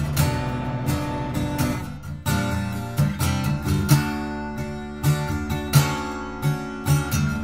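Background music: an acoustic guitar strumming chords at an even pace.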